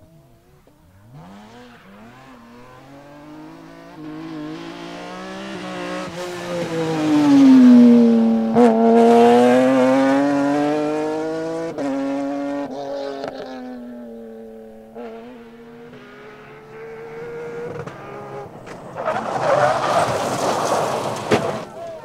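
A rally car's engine running hard as it passes on a dirt stage, loudest about eight seconds in, its pitch dipping and then climbing again. Near the end, a Porsche 911 rally car slides on loose dirt with a loud rush of tyre and gravel noise.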